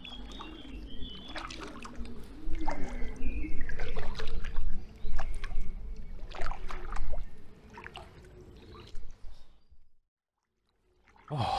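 Kayak paddle strokes splashing and dripping in the river, with a loud low rumble on the microphone for the first seven seconds or so. The sound drops out to silence for about a second near the end.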